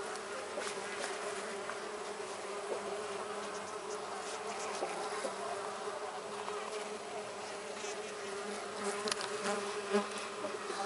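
Steady buzzing of mandaçaia stingless bees (Melipona quadrifasciata) from the opened colony as their brood discs are being removed. A few faint taps come near the end.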